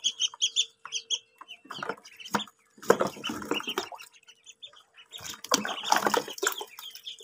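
Ducklings peeping in a run of short, high chirps, then water splashing and plastic knocking as a plastic basin is tipped into a shallow paddling pool and the ducklings scramble out among floating plastic balls. There is a sharp knock about two and a half seconds in.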